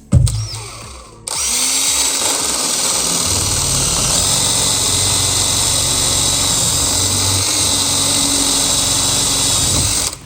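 Electric drill boring into a lock cylinder, running steadily for about nine seconds and then stopping; a single knock comes just before it starts.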